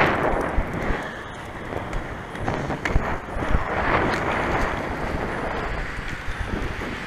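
Wind rushing over the microphone at skating speed, over the rumble of inline-skate wheels rolling on asphalt, with a few sharp knocks.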